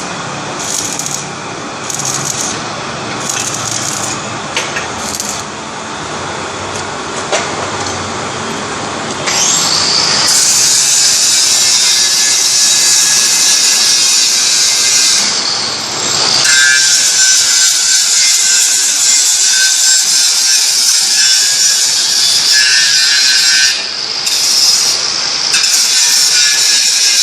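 Machinery running, with short high-pitched bursts about once a second. From about ten seconds in, a loud, steady high hiss or whine takes over, dropping out briefly twice.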